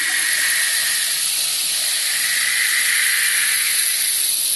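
Wind whistle blown to imitate wind: a steady, breathy whooshing hiss with a tone in it that fades slightly about a second in and again near the end, then swells back.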